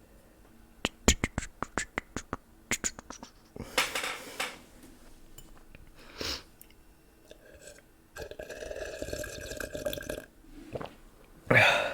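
ASMR mouth sounds made close into a microphone: a quick run of sharp tongue clicks and pops in the first few seconds, then breathy puffs and a sustained mouth noise lasting about two seconds, ending with another short puff.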